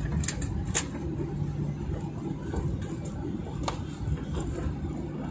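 Cabin noise of a Boeing 737-900ER taxiing after landing, heard from inside the cabin: a steady low rumble and hum of the engines at low power and the wheels on the pavement. A few sharp clicks stand out, most of them in the first second.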